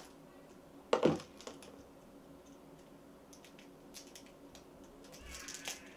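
Small clicks and rattles of a plastic packaging tray and headset parts being worked by hand, as a piece that will not come free easily is pried out. There is one louder thump about a second in and a scraping rustle near the end.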